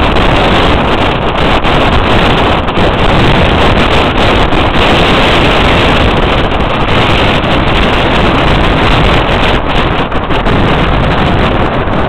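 Strong wind buffeting the camera's microphone: a loud, continuous rumbling rush with small gusty swells in level.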